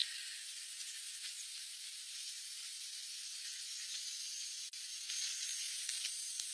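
A steady high-pitched hiss of noise, with a few faint clicks.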